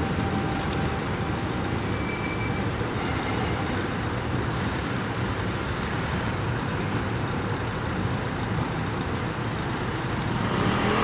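Steady low rumble of a regional train hauled by an E464 electric locomotive. A faint high whine joins it about four seconds in.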